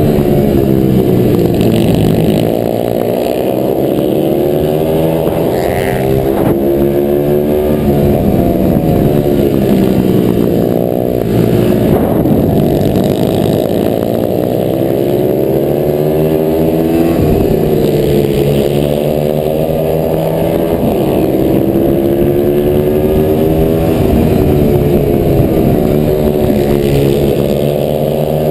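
Racing pit bike's single-cylinder engine, heard from on board, revving up and dropping back again and again as the rider accelerates out of and brakes into the corners. Wind noise runs underneath.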